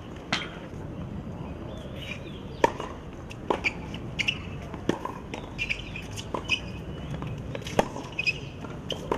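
Tennis rally on a hard court: a string of sharp pops from racket strikes and ball bounces at an irregular pace, with short high squeaks between them.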